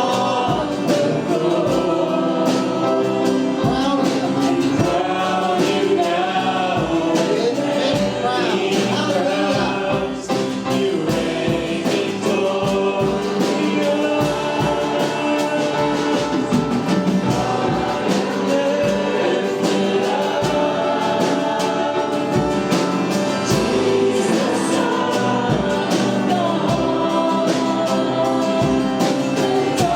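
Group of voices singing a gospel worship song over instrumental accompaniment, continuous throughout.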